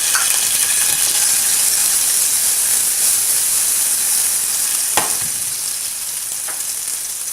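Chopped green chillies sizzling in hot oil with mustard seeds for a tadka: a loud, steady frying hiss that eases slightly toward the end. One sharp click about five seconds in.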